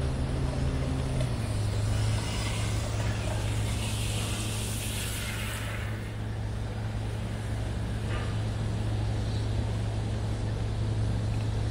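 Street traffic: a vehicle engine hums steadily, and a passing car's tyre noise swells and fades in the middle.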